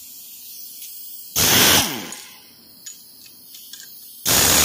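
Two loud, short bursts of hissing noise, each about half a second, about a second and a half in and again near the end, with a few faint metallic clicks in between.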